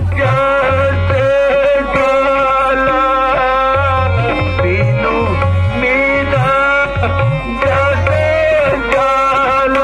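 Ramleela dialogue sung to tabla: a voice singing a gliding, ornamented melody over a held drone note, with low tabla strokes coming in and out.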